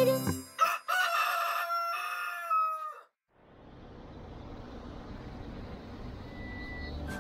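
A rooster crowing once, a single drawn-out cock-a-doodle-doo played as a sound effect, ending about three seconds in. After a moment of silence, a steady outdoor street hum fades in and grows.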